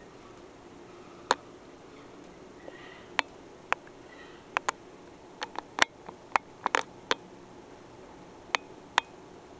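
Irregular sharp little clicks over a quiet room hiss, with a small flurry about two thirds of the way through: the wet mouth clicks of a kitten licking and grooming another kitten.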